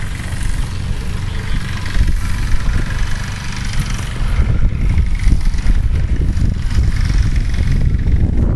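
Loud, steady low rumble of wind buffeting the microphone.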